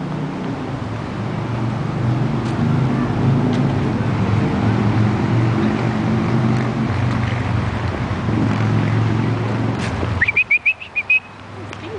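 Low, steady engine rumble of road traffic that stops abruptly about ten seconds in, followed at once by a quick run of about seven short, high chirps.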